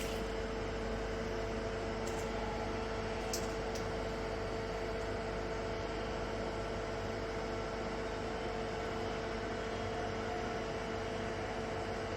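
Steady machinery hum with a constant mid-pitched whine, and a few faint clicks in the first few seconds.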